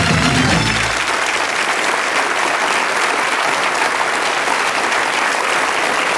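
Studio audience applauding steadily, with the closing low notes of a theme tune cutting off about a second in.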